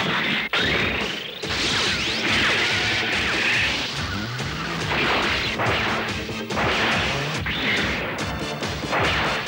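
Cartoon action sound effects: a run of crashing impacts one after another, with sliding electronic tones and background music underneath.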